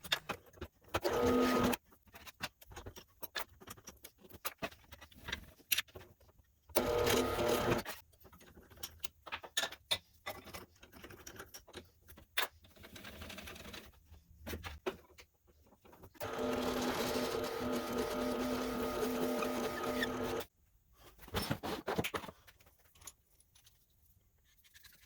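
An electric drill motor runs in three short spells, the longest about four seconds, while drilling the mounting hole in an epoxy shift knob base. Between the spells come short clicks and scraping from the work being handled.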